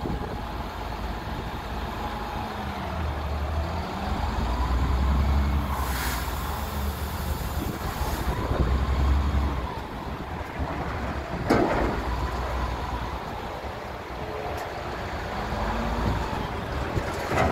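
2004 Sterling dump truck's diesel engine running with its revs raised and falling back as it drives the hydraulic hoist, while the dump bed tilts up. There are short hisses of air, a longer one about six seconds in and a sharp one about eleven and a half seconds in.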